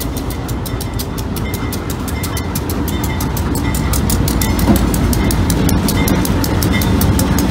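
GE B36-7 diesel-electric locomotive with its V16 diesel engine running, passing slowly at close range over a grade crossing, a deep rumble that grows louder as it comes alongside. A rapid, even clanging of the crossing signal's bell runs over it.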